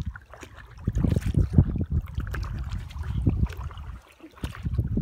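Double-bladed kayak paddles dipping and splashing in lake water as a tandem kayak is paddled along, with water trickling off the blades. A low, uneven rumble from wind on the microphone runs underneath.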